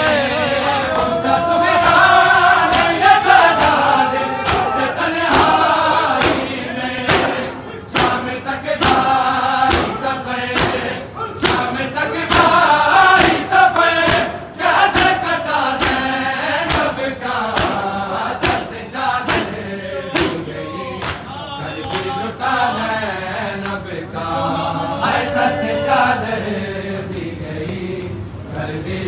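A crowd of men chanting a Shia mourning lament (nauha) in unison, with regular hand slaps of chest-beating (matam) keeping the beat.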